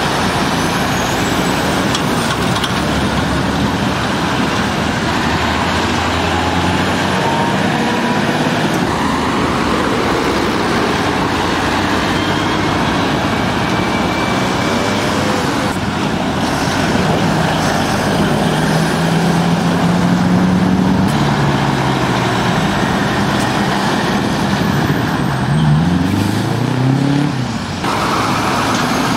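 Heavy lorries and cars going round a roundabout: steady, loud traffic noise with the diesel engines of articulated lorries pulling through. Near the end one lorry engine revs up, its pitch rising as it accelerates away.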